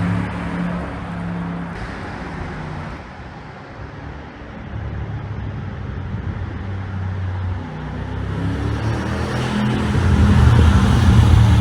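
Mercedes-AMG G63's twin-turbo V8 exhaust running with a pop-and-bang ECU tune: the engine note drops away to a quieter stretch about three to four seconds in, then builds back up and is loudest near the end.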